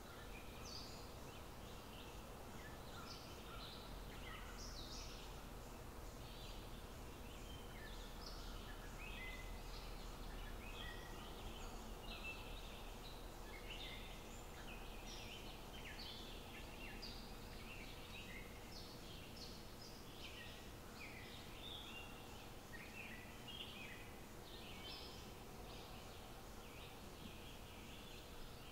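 Faint chirping of birds, many short irregular notes coming thick and fast, over a low steady rumble.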